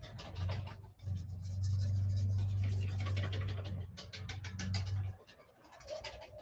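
Beer batter being whisked in a mixing bowl: rapid scraping and clicking of the whisk against the bowl. A low steady hum sits underneath from about half a second in until about five seconds.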